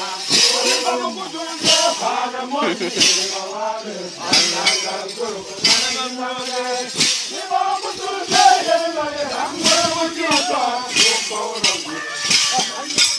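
A group of voices chanting together, with a sharp jangling rattle beat struck about every second and a half.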